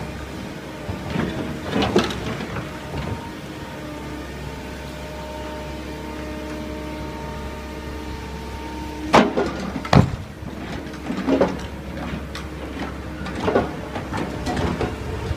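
Cat 315 wheeled excavator's diesel engine running steadily, with a few loud metallic clanks and knocks from the machine, two of the loudest close together a little past the middle.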